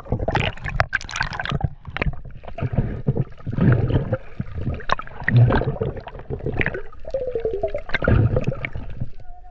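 Water gurgling and sloshing around an underwater camera as a freediver dives from the surface toward the bottom.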